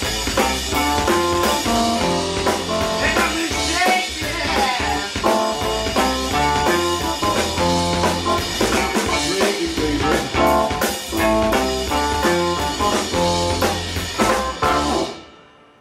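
Live band playing an instrumental passage on keyboard, drums, bass guitar and hollow-body electric guitar, with no singing. The playing stops near the end.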